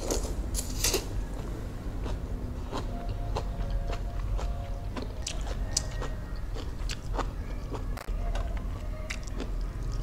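Close-miked eating of instant noodles: a quick run of wet sucking sounds in the first second as the noodles are drawn into the mouth, then chewing with scattered small wet clicks and smacks.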